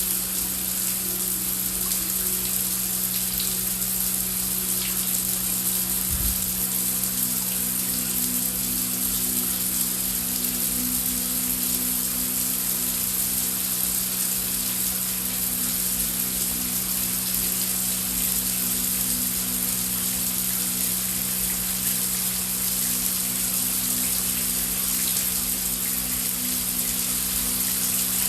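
Heavy rain falling in a steady, even hiss, with a low steady hum underneath.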